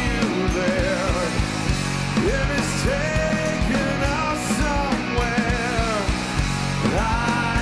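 Grunge-style rock band playing live: a male singer sings held, bending notes over a drum kit, with a couple of cymbal crashes.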